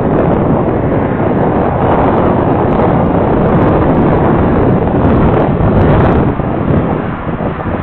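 Wind gusting against an outdoor security camera's microphone: a loud rushing roar that comes in abruptly and eases off after about six seconds.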